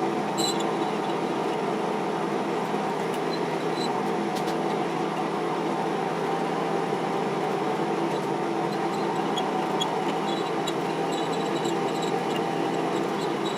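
Small metal lathe running at a steady speed: an even mechanical whir with several held tones and faint light ticks now and then.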